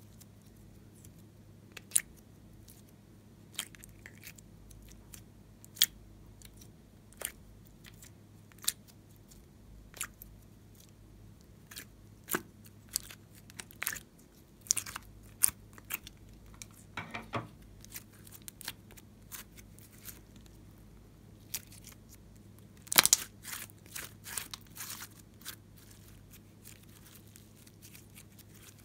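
Sticky clicks and crackles of slime being peeled out of the cells of a clear plastic cube-shaped mold. They come singly every second or two at first, then bunch into quick runs about halfway through and again about three-quarters of the way in.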